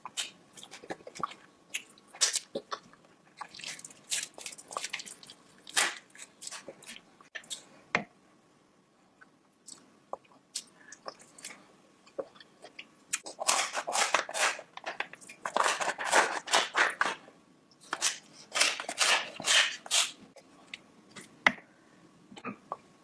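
Close-miked chewing and biting of a sauced seafood boil, with wet, crunchy mouth sounds. The bites are spaced out at first, then come in dense bursts of crunching about two-thirds of the way through and again near the end.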